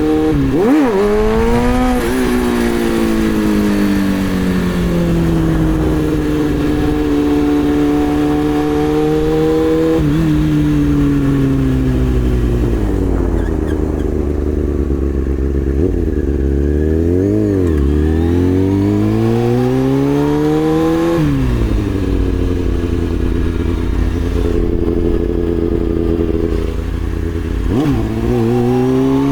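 2003 Kawasaki ZX-6R (ZX-636) inline-four engine revving up and down in first gear, its pitch rising and falling several times, with a long climb and fall in the middle.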